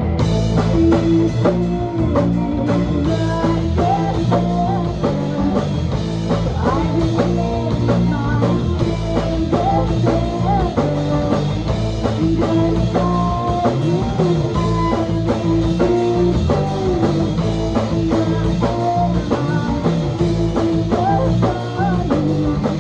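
Live rock band playing an instrumental break, guitar over bass and drum kit, without singing.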